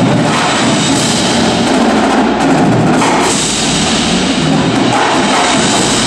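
Indoor percussion ensemble playing at full volume: marching snare, tenor and bass drums over marimbas and mallet keyboards, a dense steady wall of drumming and mallet notes.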